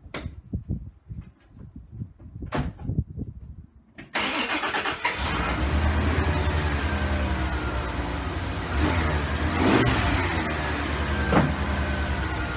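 A few knocks, then the 1989 Dodge Dakota's 3.9-litre throttle-body-injected V6 cranks briefly and catches about four seconds in, then runs at a steady idle.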